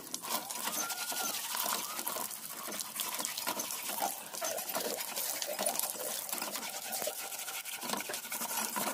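A stream of water splashing onto a raw animal hide and the concrete beneath it while hands scrub and rub the wet hide, a steady splashing and pattering.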